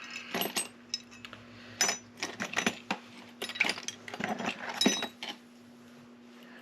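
Small metal lock parts clicking and clinking as a door lock is taken apart by hand: a string of sharp clicks and knocks, some with a short metallic ring, that stop about five seconds in. A faint steady hum runs underneath.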